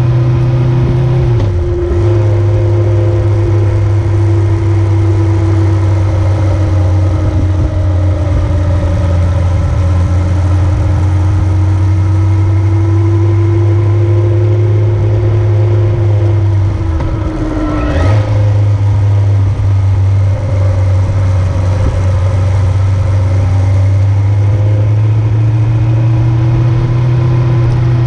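Motor vehicle running steadily under way, its engine drone dipping briefly twice, about two seconds in and again near the eighteen-second mark, with a short sharp click at the second dip.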